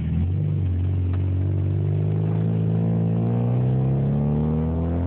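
Volkswagen GTI 16V's four-cylinder engine heard from inside the cabin, accelerating in gear with its pitch rising steadily.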